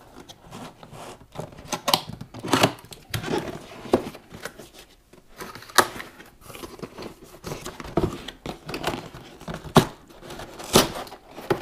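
Cardboard packaging being opened by hand: irregular tearing, rustling and scraping of cardboard, with a few sharper knocks and snaps.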